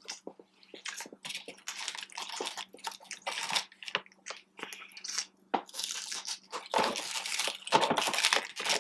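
Paper food wrapper crinkling and rustling as hands pick food out of it, mixed with close-up chewing and crunching of food, in a run of irregular crackles.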